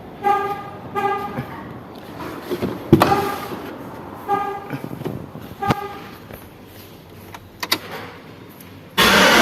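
A few short beeps and some sharp clicks, then about nine seconds in the 2005 GMC Sierra's engine fires up and keeps running. It starts now that the loose pin 87 terminal in the starter-relay socket has been replaced.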